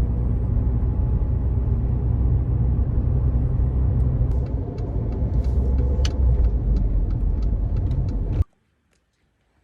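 Steady low vehicle rumble with a few faint clicks, cutting off suddenly about eight seconds in.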